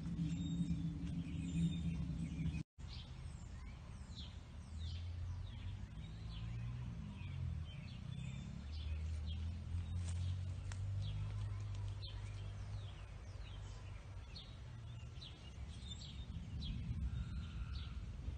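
Songbirds chirping and singing, many short quick chirps, over a steady low rumble.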